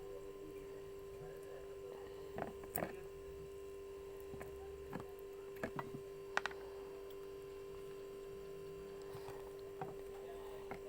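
A steady electrical hum, with a handful of light clicks and taps, about seven spread irregularly, from a spoon and a small container being handled while mixing.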